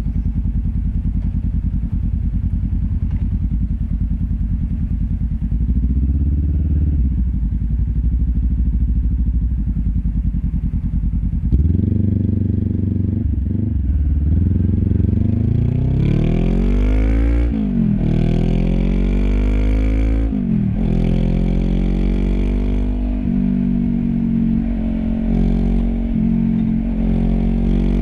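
Honda CB500X parallel-twin engine heard close at its LeoVince LV10 slip-on exhaust. It idles steadily for about the first eleven seconds, then pulls away with the revs climbing. The pitch drops sharply at two upshifts, and it settles into a steady cruise.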